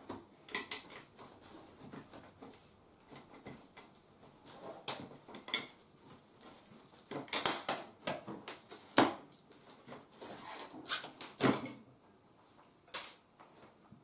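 Utility knife cutting through packing tape along the seam of a cardboard box: irregular scratchy scrapes and sharp clicks, the loudest in the middle.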